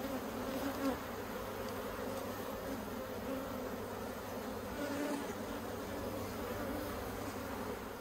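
A colony of honey bees humming steadily from an opened hive, the even drone of many wingbeats around a brood frame lifted out during inspection.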